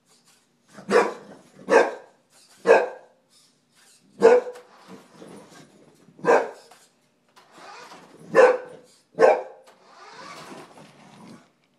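An English bulldog barking at a remote-control toy car: seven loud, sharp barks at uneven gaps, with softer noise between them.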